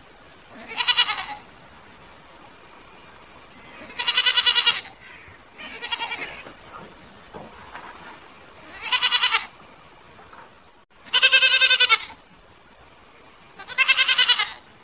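Goats bleating, six separate wavering calls spaced a few seconds apart, each lasting about half a second to a second.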